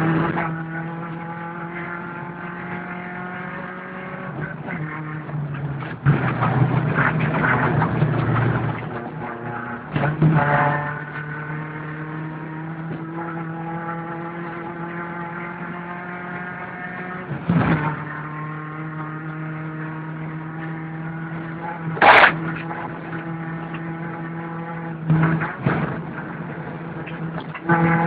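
VW Golf Mk2's four-cylinder engine heard from inside the cabin, running hard at a steady high note on a dirt rally stage. Its pitch sags and recovers a few seconds in. A rough rattling stretch and sharp knocks come from the car hitting bumps, the loudest about twenty-two seconds in.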